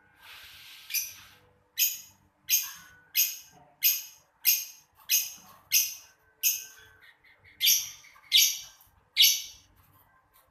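Lovebird giving a run of about a dozen short, high, harsh calls, roughly one every two-thirds of a second, with a brief break about seven seconds in.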